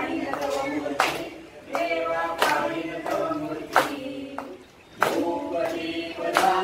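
A group singing a Hindu aarti to Ganesh in unison, with hand claps keeping time, a loud clap about every second and a quarter.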